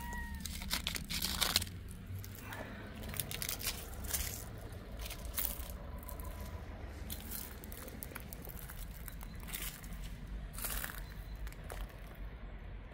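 A short cat meow right at the start, then irregular crinkling and crunching sounds.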